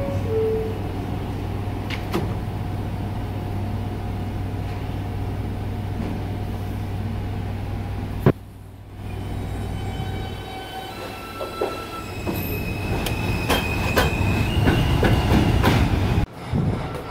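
New York City subway train at a station after its doors close. A steady low hum runs for about eight seconds, then a sharp click and a sudden drop in level. After that the train's motor tones and wheel noise build up, with several high steady tones and sharp clicks, and the sound breaks off abruptly near the end.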